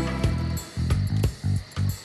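Background music score: short, low plucked notes in a quick stop-start rhythm.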